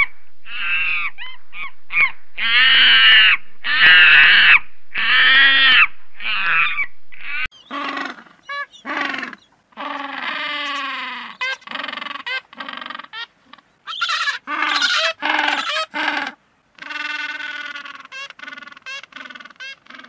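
Young macaque monkey calling again and again with loud, high-pitched cries. About seven seconds in, the sound cuts to a different run of shorter, lower animal calls.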